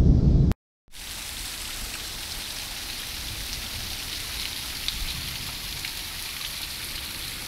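A low rumble cuts off about half a second in. After a brief gap, heavy rain pours down onto pavement and parked cars as a steady hiss with scattered drop ticks.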